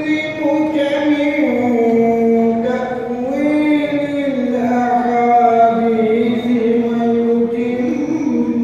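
A young man's voice reciting the Quran in Arabic in the melodic tajwid style, with long held notes that slide slowly up and down.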